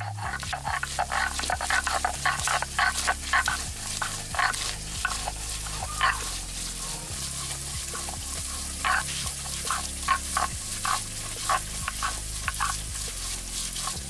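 A hand-held stone rubbed and pounded on a flat grinding stone (sil-nora), crushing green chillies, garlic and cumin seeds. It goes in quick, uneven scraping strokes that ease off briefly about halfway through.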